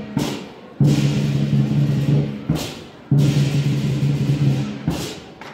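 Lion dance percussion music: three low, steady booming passages, each about one and a half to two seconds long and cut off sharply, with sharp strikes and a crashing, cymbal-like sound between them.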